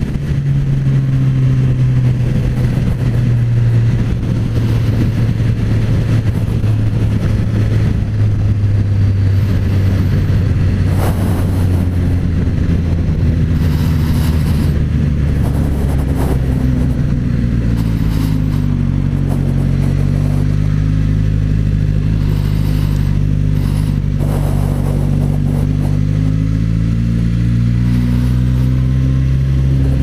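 Suzuki GSX-S1000Z's inline-four engine running under way with a deep note, its pitch sagging as the bike slows from about 100 km/h to city speed, then dipping and rising again in the second half.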